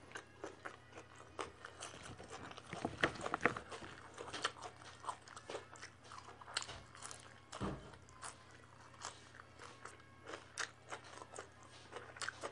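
Close-up chewing and crunching of fresh leafy greens: a run of irregular crisp crunches and mouth clicks, densest and loudest about three seconds in. There is a single dull thump a little past the halfway point.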